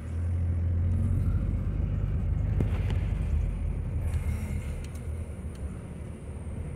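Car engine and road noise heard from inside the cabin: a low, steady rumble that swells right at the start and eases after about four seconds.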